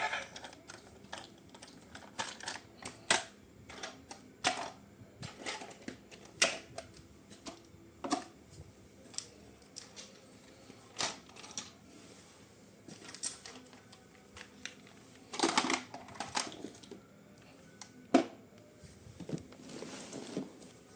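Irregular sharp clicks and taps of objects being handled, one every second or two. About fifteen seconds in there is a louder stretch of rustling and clattering lasting a second or so.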